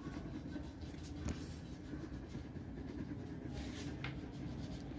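Light blue plastic crayon rubbing back and forth on paper while a leaf shape is coloured in, with a couple of light taps.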